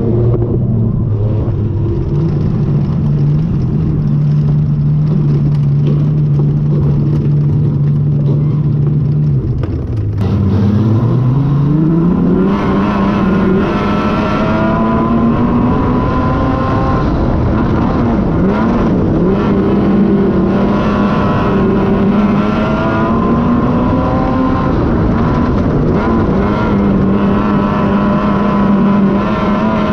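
Wingless sprint car engine running at a steady pitch, then revving up about ten seconds in and rising and falling in pitch as the car is driven hard on a dirt speedway.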